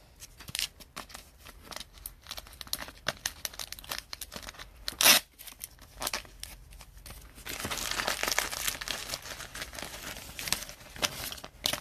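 Trading-card packaging crinkling and tearing by hand, with many small clicks and rustles, one sharp crackle about five seconds in and a denser run of rustling from about eight to ten seconds.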